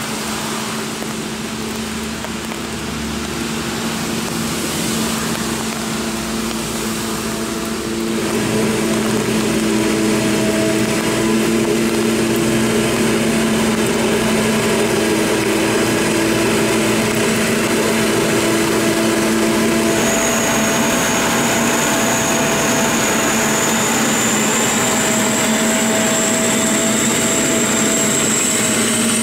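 Claas Jaguar 965 forage harvester running under load as it chops maize, a steady engine drone mixed with a tractor running alongside. It gets louder about a quarter of the way in, and about two-thirds of the way through a high, slowly rising whine sets in.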